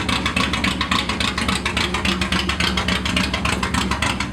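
Toyota Starlet KP61's four-cylinder engine idling steadily while it warms up, in a quick, even train of exhaust pulses.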